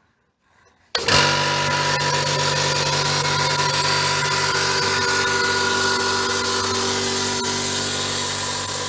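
SGS 24-litre, 2.5 hp oil-lubricated air compressor switching on about a second in and running steadily, its motor and pump starting to build pressure in the tank.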